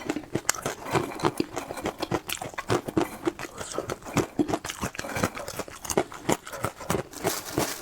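A person chewing food close to the microphone, with wet lip smacks and mouth clicks coming irregularly several times a second.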